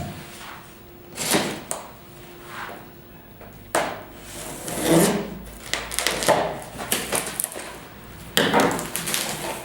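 Cardboard box being opened by hand: a series of short, irregular bursts of cardboard and packaging noise as the flaps are worked open.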